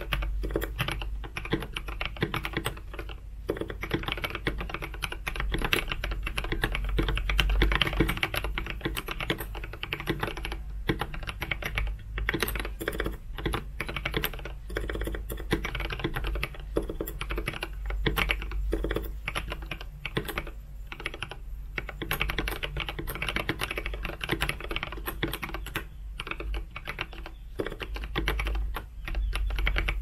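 Continuous fast typing on a GK61xs 60% mechanical keyboard in a wooden case, fitted with Gateron Milky Yellow linear switches and Ducky SA-profile ABS keycaps: a dense stream of keystroke clacks with a few brief pauses.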